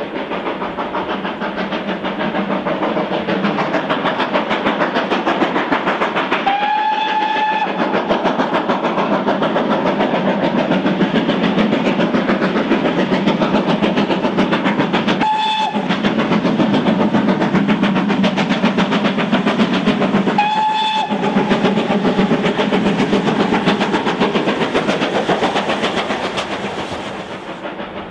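Steam locomotive chuffing steadily as it passes, sounding its whistle three times: one longer blast, then two short ones. The chuffing fades away near the end.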